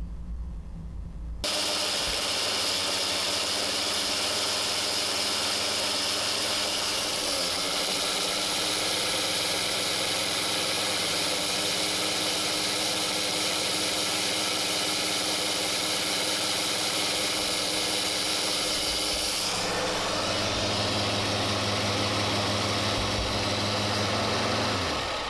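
Two small brushless drone motors spinning long 3D-printed screw propellers in open air, a steady whine that starts abruptly about a second in. About 19 seconds in it turns lower and duller, and near the end it winds down with a falling pitch as the throttle is let off.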